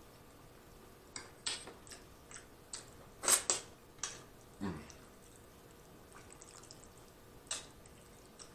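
Close-miked eating mouth sounds: a scatter of short wet lip smacks and chewing clicks, the loudest pair about three seconds in, a short low sound just after the middle and one more smack near the end.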